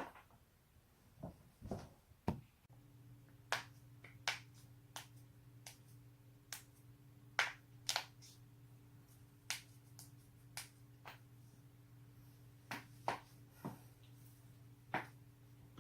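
A person cracking their joints: a series of sharp pops, irregularly spaced at about one a second. A steady low hum comes in a few seconds in.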